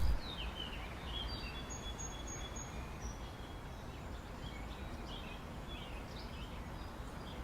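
Outdoor ambience: a steady low rumble of background noise with faint birds chirping, including a quick run of four high chirps about two seconds in.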